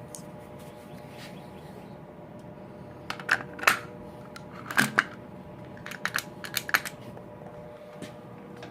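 Short metallic clicks and knocks in a few small clusters as the distributor is worked and turned in its bore to seat onto the oil pump shaft, over a steady faint hum.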